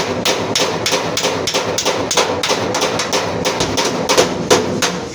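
A hammer beating sheet-metal body panel in a steady run of blows, about three a second. This is panel beating to straighten accident damage on the front of a Suzuki Ravi pickup.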